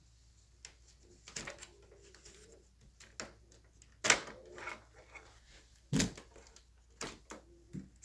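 Scattered clicks and knocks of something being handled, loudest about four and six seconds in, with no motor running.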